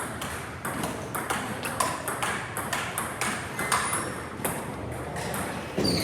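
Table tennis ball being struck back and forth in a rally, a quick, irregular run of sharp clicks off the paddles and table.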